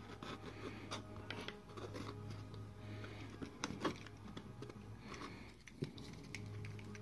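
Faint clicks and scrapes of hands flexing and handling thin sheet-aluminium returns tacked with hot melt under a plywood strip, with a sharper tick just before four seconds and again near six. A low hum comes and goes underneath.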